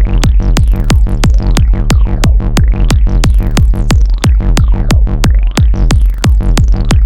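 Electronic trance/techno music with a fast, steady beat and heavy bass. Synth sweeps rise and fall in pitch over it.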